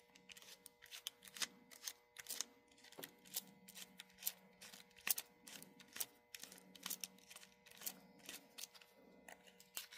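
Faint, irregular clicks and ticks, about two or three a second, of a precision screwdriver working the tiny screws out of a Lima HO-scale 2-8-2 model locomotive's chassis.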